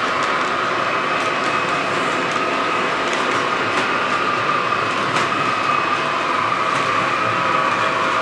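Model train running along the track: a steady electric-motor whine over the rolling of its wheels on the rails, with a few faint clicks.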